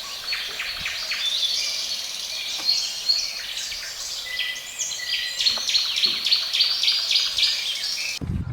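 A chorus of many small birds chirping and twittering, a dense, steady mass of short high calls. Near the end it cuts off abruptly.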